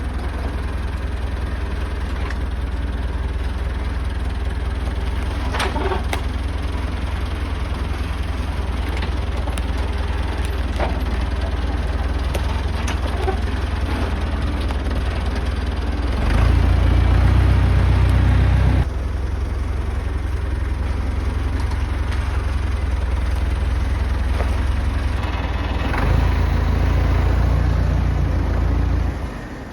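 Engine idling steadily, growing louder twice for a few seconds, once past the middle and once near the end.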